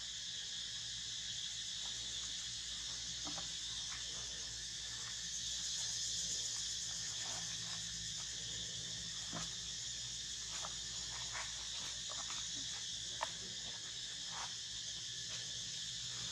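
Steady high-pitched drone of a chorus of insects, with scattered faint ticks throughout.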